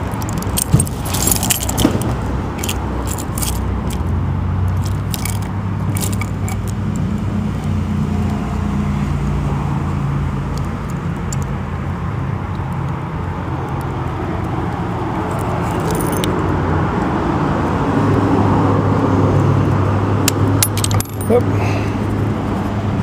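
A key and the metal parts of a double-cylinder gate lock click and jingle in irregular bursts as they are handled and turned, most in the first few seconds and again near the end. A steady low hum of traffic runs underneath.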